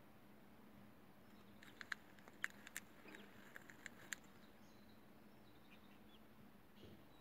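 Hatching chick pecking at its cracked eggshell from inside: a quick, faint run of about a dozen sharp clicks and taps between about two and four seconds in. A couple of faint peeps follow.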